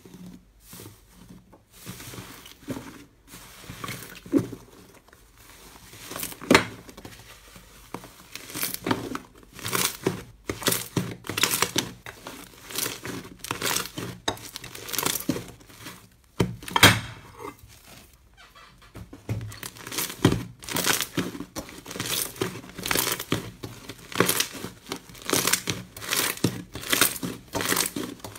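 Hands pressing, stretching and folding a thick brown slime, giving an irregular run of crinkly crackles and sharp little pops, several a second, with a brief lull about halfway through.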